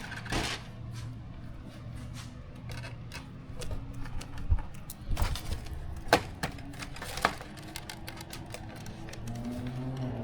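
Scattered clicks and taps of small plastic and metal kit parts being handled and fitted during assembly of an RC model plane, over a low steady hum.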